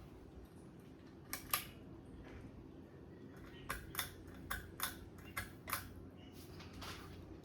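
Ceiling fan running with a steady low hum, over which come sharp irregular clicks, a pair about a second and a half in and a cluster of six or so between about four and six seconds in.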